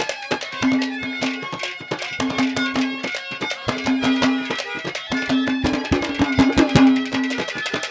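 Instrumental passage of Haryanvi ragni folk music: fast hand-drum strokes over a held low note that comes back again and again, each time for under a second.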